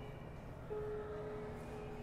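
Digital piano playing a soft, slow introduction: a few held notes, with a new note struck about two-thirds of a second in.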